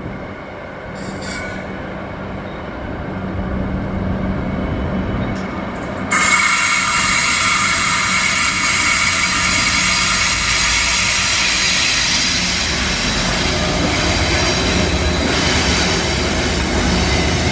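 Narrow-gauge container freight train rolling past, wagons rumbling. About six seconds in, the Pacific National diesel locomotives at its rear come by and the sound turns suddenly louder, adding engine noise and a steady high metallic squeal.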